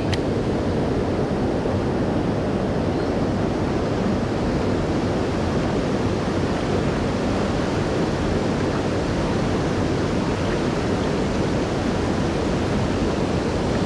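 Steady rushing of water and wind, strongest in the low range and unbroken throughout.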